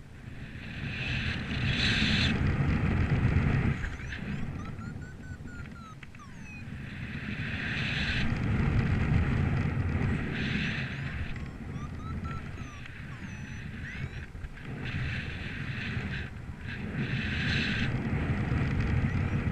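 Gusty wind buffeting the microphone, a low rumble with hiss that swells and dies back in three big gusts a few seconds apart.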